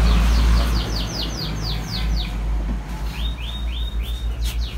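Small birds chirping: a fast run of high, falling chirps, about five a second, then a few rising notes about three and a half seconds in, over a steady low hum.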